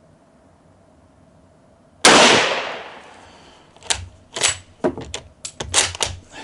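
A single shot from a Yugoslavian M48 8mm Mauser bolt-action rifle about two seconds in, ringing out for about a second, fired with hot brass-cased Yugoslavian surplus ammunition. Then the bolt is worked with a quick series of sharp metal clacks as the spent case is extracted and ejected and the action cycled.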